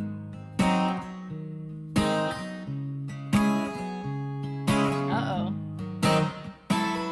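Acoustic guitar playing the song's intro: slow strummed chords, one sharp strum about every second and a half, each chord left to ring.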